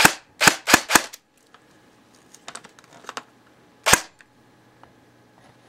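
Airsoft electric gun (AEG) firing shots into a chronograph during a velocity test: four sharp shots within about the first second, then one more about four seconds in.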